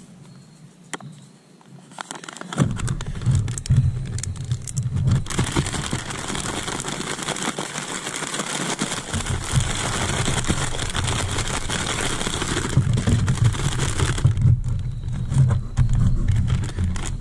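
A zip-top plastic bag holding crappie fillets and Cajun fish breading being shaken hard to coat the fillets: a steady crinkling, shuffling noise that starts a couple of seconds in and dies down into a few handling clicks near the end.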